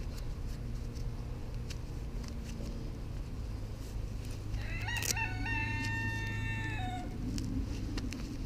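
A rooster crowing once about halfway through: a single call of roughly two and a half seconds, rising in at the start, held on one note, and falling away at the end.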